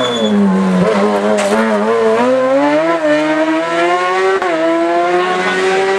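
Sports prototype race car's engine coming off a hairpin. The revs fall for about the first second, then climb as it accelerates away, with a short dip at each gear change, about three seconds in and again near four and a half seconds.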